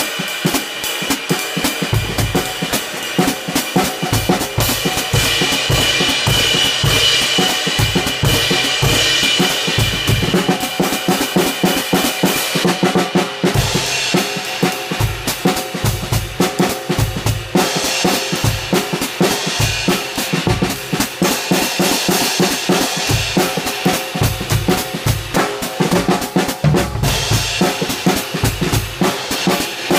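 Drum kit played in a steady groove, bass drum and snare under the continuous wash of large Spizzichino ride cymbals and a hi-hat. The cymbal wash breaks off briefly twice partway through.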